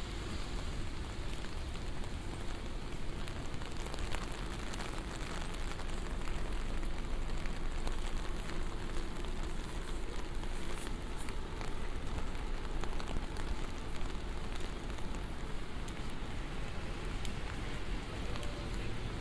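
Steady rain pattering on an umbrella, many small drop ticks over a continuous hiss, with a steady low rumble underneath.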